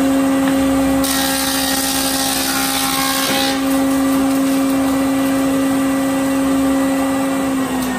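General thickness planer running with a steady motor hum. About a second in, the infeed roller pulls a board under the cutterhead and the knives plane it for about two and a half seconds, a loud rush of cutting noise, before the machine runs on without a board.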